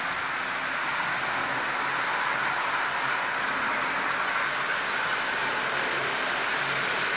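Marx prewar Commodore Vanderbilt toy train locomotive running on three-rail tinplate track at low transformer power, a steady whir of motor and wheels on the rails that grows a little louder near the end.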